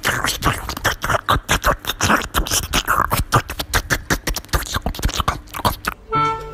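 English bulldog eating spaghetti off a plate: rapid smacking and chewing, about six mouth sounds a second. It stops about six seconds in, where a tune on a woodwind-like instrument begins.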